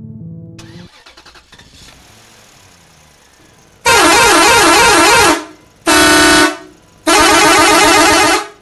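Background music fades out in the first second. After a pause, an electronic horn blares three times: a warbling blast about a second and a half long, a short steady blast, then another warbling blast.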